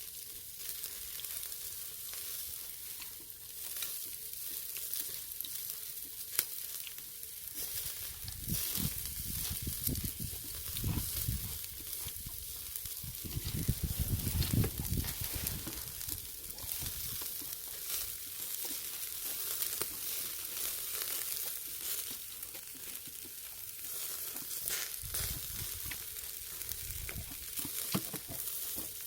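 Pork neck sizzling over a charcoal brazier: a steady hiss with fine crackling pops as fat and juices drip onto the hot coals. A low muffled rumble comes and goes in the middle and again near the end.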